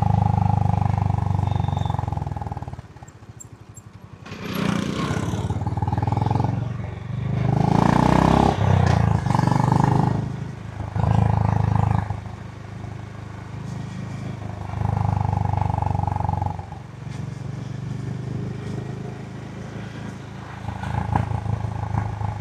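Honda GB350's single-cylinder engine on its stock exhaust while riding, the throttle opening and closing so the engine note rises and falls. It goes quiet briefly about three seconds in, then picks up again with bursts of rushing noise a few seconds later.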